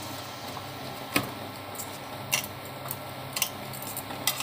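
Light, sharp clicks and taps, about one a second, as hands knead dough in an aluminium bowl, over a steady low background hum.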